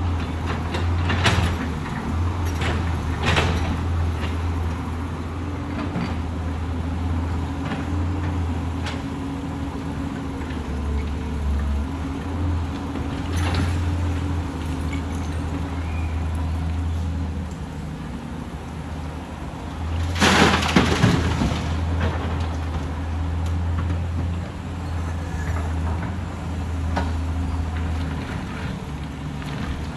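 Excavator's diesel engine running steadily, with scattered knocks and clunks from the machine working. About two-thirds of the way through comes a loud rushing hiss lasting a second or two.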